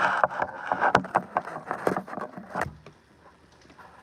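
Handling noise from a phone being moved and adjusted: irregular taps, clicks and rubbing against its microphone, dying down near the end.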